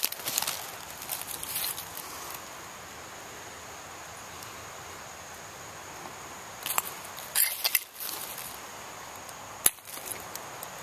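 Footsteps and rustling in dry leaf litter: short crunching rustles in the first couple of seconds and again about seven seconds in, with one sharp click near the end.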